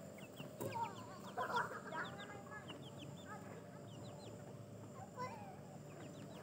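Serama bantam chickens clucking in short calls, busiest from about one to two seconds in and again about five seconds in, with thin high chirps in the background.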